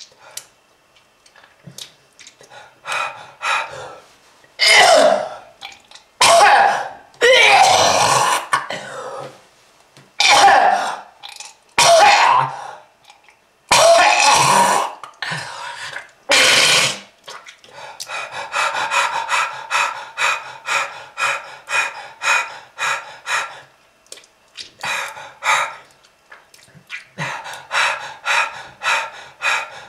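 A person coughing hard and clearing the throat in long, harsh bouts, then breaking into runs of short, quick coughs at about three a second.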